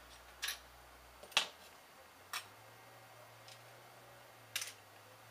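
Sharp clicks of a metal pick or tweezers working desoldered chips loose on a circuit board: four clicks about a second apart, the loudest about a second and a half in, with a fainter tick between. A low hum underneath drops out about a second in.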